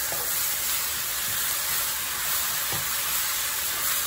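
Shredded beef, tomato and sambal sizzling steadily in an oiled stainless steel wok while a wooden spatula stirs it, with a couple of faint knocks of the spatula against the pan.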